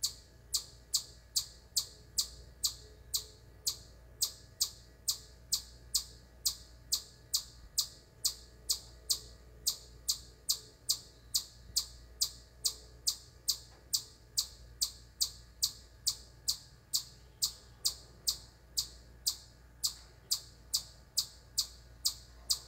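Eastern chipmunk giving its loud, repetitive chip call: short, high, sharp chirps at a steady pace of a little over two a second, on and on without a break.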